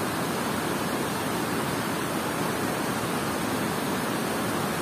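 Steady rush of water pouring over a concrete dam spillway and churning in the fast current below it.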